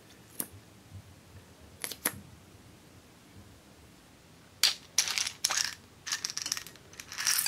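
A few light clicks from a lipstick tube being handled. Then small hard cubes shaken out of a small plastic container clatter onto a glass bowl in several rattling bursts, the loudest sound in the clip.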